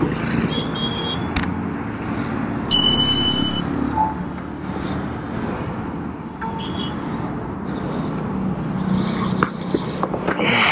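Roadside traffic noise: motor vehicles running and passing steadily, with two short high beeps in the first few seconds.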